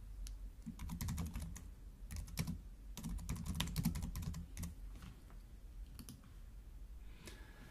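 Keyboard typing: a quick run of key clicks as a short title is typed, stopping about five seconds in, with a couple of last clicks around six seconds.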